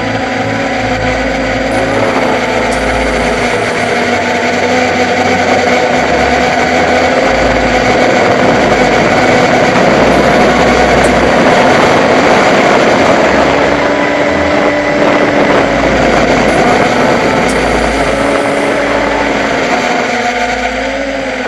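Brushless motors and 8-inch propellers of a Hobbyking X525 quadcopter in flight, heard through its onboard camera's microphone: a steady buzzing hum whose pitch wavers slightly up and down.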